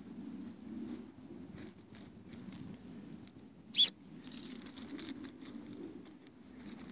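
Footsteps scuffing along a dirt and grass track with the rustle of a handheld phone, in irregular light crackles. A single short, sharp high squeak about four seconds in.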